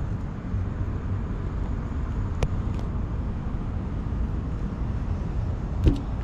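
A 5-inch FPV quadcopter's motors and propellers running steadily, heard from the GoPro mounted on the drone. A couple of faint clicks come midway, and a brief louder bump comes near the end.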